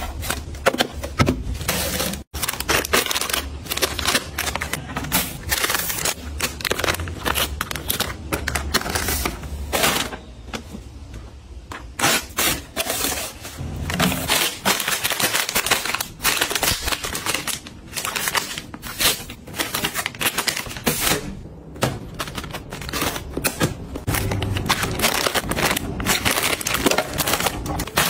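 Items being handled and packed away: a dense run of clicks, taps and rustles, broken by a short gap about two seconds in and a quieter stretch midway.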